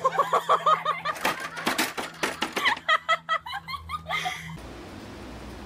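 Girls laughing hard in quick, high-pitched bursts, with a few sharp clicks in between. The laughter cuts off abruptly about four and a half seconds in, leaving a steady hiss.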